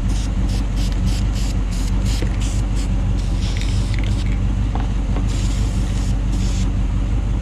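Inboard boat engine idling steadily while warming up, a constant low hum, with repeated short bursts of hiss over it and a longer hiss about five seconds in.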